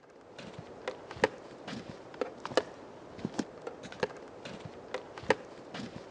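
Footsteps on a dry pine-forest floor, twigs cracking underfoot: irregular sharp cracks a few times a second, some much louder, over a steady background hiss.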